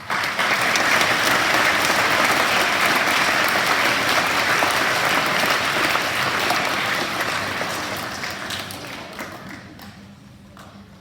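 Audience applauding, starting suddenly and dying away over the last few seconds.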